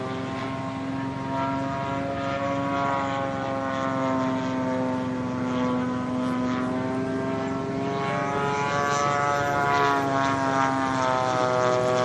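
The 20cc single-cylinder two-stroke petrol engine of an RC Yak 54 stunt plane running steadily and driving its propeller. The pitch drifts gently up and down with small throttle changes.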